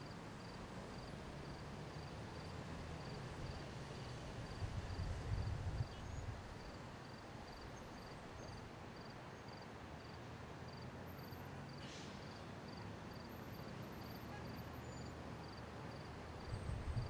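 Distant city traffic, a steady low hum of engines and tyres. The rumble swells for a second or two about five seconds in. A faint high chirp repeats evenly about twice a second throughout, and there is a brief high hiss about twelve seconds in.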